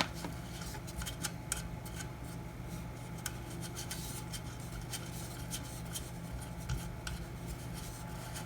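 Small hand tool working the hands off a wall clock's face: a string of light, irregular clicks and small scrapes of metal on metal.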